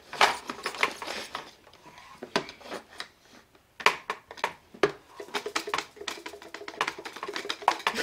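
Hand-held plastic Etch A Sketch drawing toys being shaken to erase, giving irregular rattling clicks that thin out briefly around the middle and come thicker again from about four seconds in.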